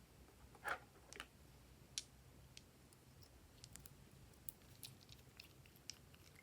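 Faint, scattered small clicks and taps from handling slime and its containers: one louder, duller tap about a second in, then irregular light ticks and little crackling clicks.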